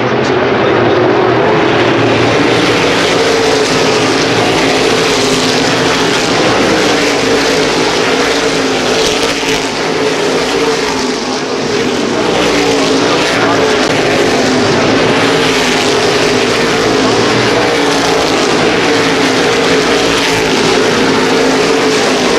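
A pack of NASCAR Whelen Modified race cars running laps on a short oval, their V8 engines making a loud, continuous drone whose pitch wavers as the cars go through the turns and down the straights. It eases slightly about halfway through.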